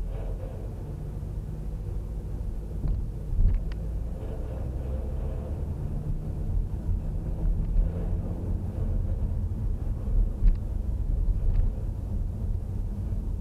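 Car engine and tyre rumble heard from inside the cabin while driving slowly along a town street: a low steady hum with a few short knocks from bumps in the road.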